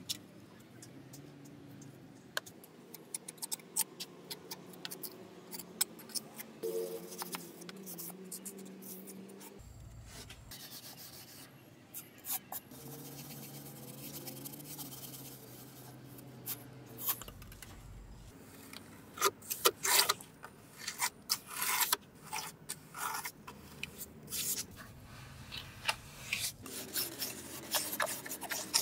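Small hand trowel scraping and smoothing wet cement mortar over a miniature brick wall: irregular short scrapes and taps, coming thickest in the second half.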